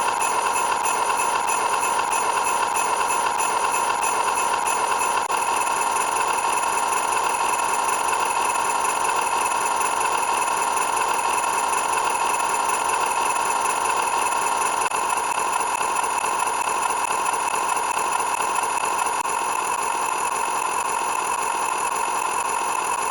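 Loud, unbroken electronic sound effect: a drone of several steady high tones over a dense hiss, unchanging throughout.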